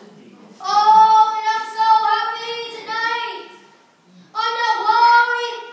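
A child singing in a high voice: two phrases of long held notes with a short pause between them.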